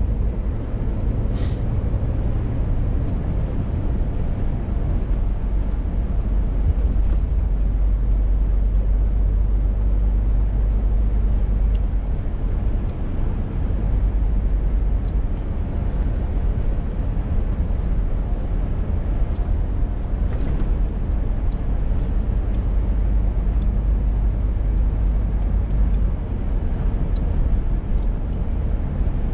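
Scania R450 articulated lorry on the move. Its 13-litre six-cylinder diesel gives a steady low drone under road noise, with a few faint ticks scattered through.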